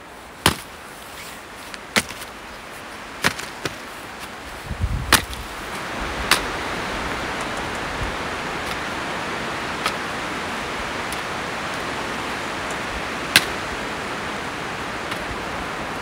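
Axe blows splitting firewood on a chopping block: about six sharp strikes in the first six seconds and one more near the end. From about five seconds in, a steady hiss comes up and stays.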